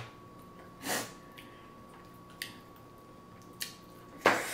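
Quiet eating-show sounds at the table: a few faint, brief clicks from handling crab shell and food, and two short noisy nasal breaths, the second, just after four seconds in, the loudest.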